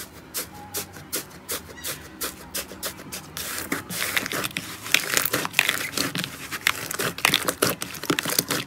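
Fingers pressing into a grainy, crunchy green slime, a crisp crackle with each press, about three a second. About three and a half seconds in this gives way to thick green slime being squeezed and kneaded with both hands, with dense, louder crackling and popping.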